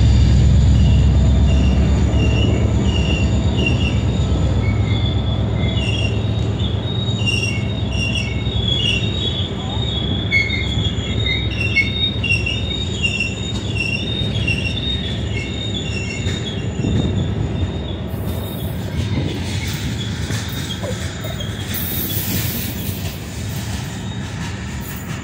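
Freight train of boxcars and open gondolas rolling past, its steel wheels squealing in short, high, overlapping tones over a steady low rumble. The rumble eases off gradually, and the squealing dies away about two-thirds of the way through.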